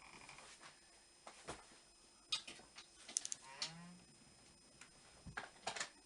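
Scattered light clicks and knocks of small objects being handled, with one brief squeak about three and a half seconds in.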